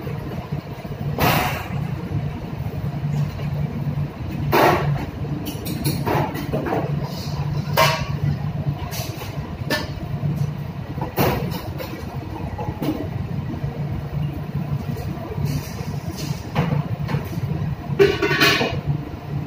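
Steady low hum of a ship's machinery, with intermittent clanks and clatters of stainless-steel pots, a bowl and a ladle being handled at the galley stove. The loudest clatter comes near the end.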